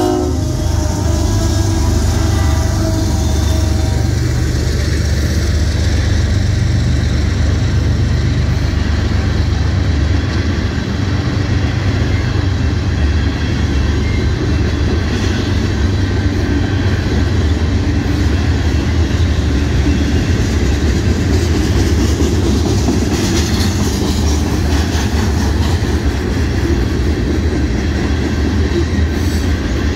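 Union Pacific freight train rolling past close by: the last of the locomotive's horn ends within the first second, then the diesel locomotive and a long line of covered hopper cars give a steady heavy rumble and clatter of wheels on rail.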